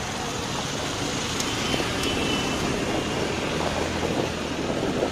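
Steady engine and road noise from many motorcycles and scooters crawling together in a traffic jam.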